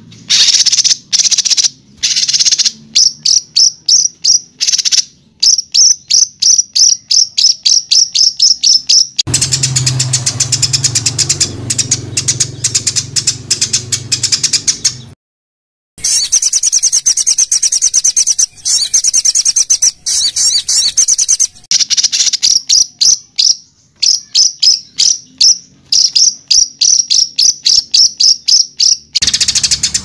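Recorded songbird calls for tutoring caged songbirds: rows of sharp, high, rapidly repeated notes, the harsh 'tembakan' (shot) phrases, several a second. From about nine seconds a denser buzzy, rattling stretch runs for some six seconds and breaks off in a short silence, after which fast high trills and repeated notes resume.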